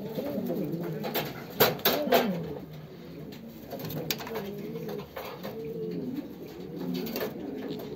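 Several pouter pigeons of the Jiennense breed cooing over one another, with a few sharp claps about one and a half to two seconds in.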